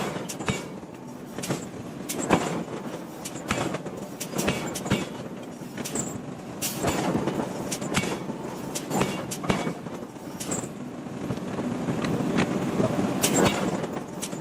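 Hammer blows on a red-hot iron block as it is forged and drawn out: sharp metallic strikes at irregular intervals over a steady background noise.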